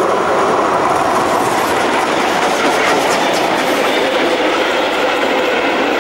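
Passenger train rolling past, its coaches' wheels clattering steadily over the rail joints.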